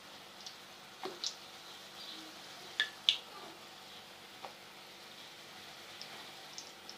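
Besan-batter bhallas frying in hot ghee: a low, steady sizzle with scattered sharp pops and crackles, the loudest a little after three seconds in.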